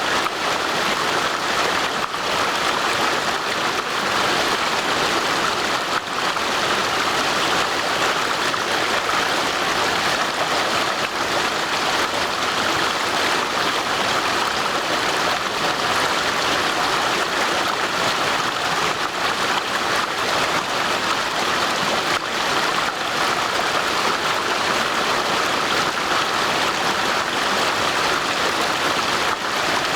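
Steady rushing of a stream's flowing water, an even hiss without breaks.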